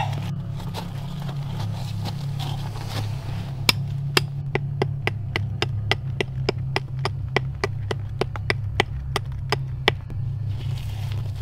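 A bladed hand tool chopping rapidly at a tree trunk, hacking off bark to blaze the tree: about twenty sharp knocks at three to four a second, starting a few seconds in and stopping about a second before the end, over a steady low hum.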